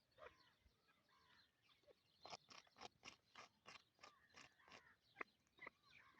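Faint calling of a teetar (francolin): a quick series of short, repeated, pitched notes, about three a second, from about two seconds in, with scattered single notes before and after.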